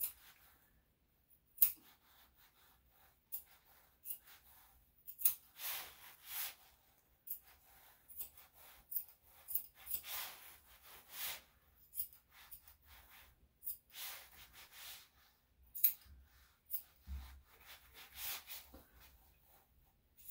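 Grooming scissors snipping through a Yorkshire Terrier's coat, in irregular runs of short cuts with a few longer rustles mixed in.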